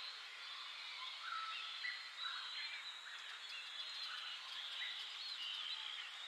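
Many small birds singing and chirping at once, short overlapping calls and quick up-and-down whistled notes over a steady hiss.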